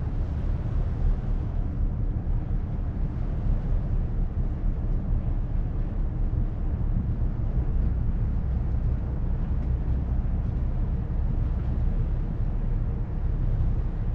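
Small workboat's engine running steadily as a low, even rumble, with some wind on the microphone.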